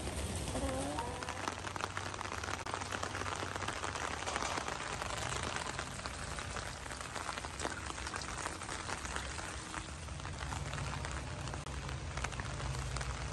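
Steady rain falling on wet grass, mud and puddles: an even hiss of many small drop ticks.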